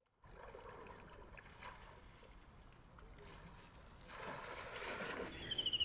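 Water splashing and sloshing around a small boat, swelling about four seconds in. Near the end a bird starts a loud, fast trill that falls slowly in pitch.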